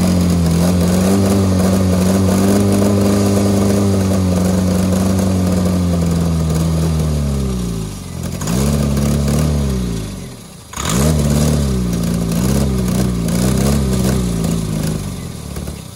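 Honda Civic four-cylinder engine, with tire-sealant foam in its crankcase in place of oil, running only on ether sprayed into the intake. It runs steadily, then sags and nearly dies about seven seconds in and flares up again. It drops out and catches again suddenly about eleven seconds in, surges unevenly, and fades out near the end.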